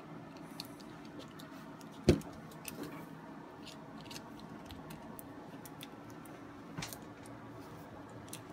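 Small metal parts of a universal sight pusher tool being handled and screwed together: scattered light clicks and one sharp knock about two seconds in, over a faint steady hum.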